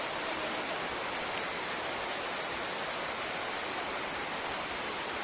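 Steady, even rush of water falling at a waterfall.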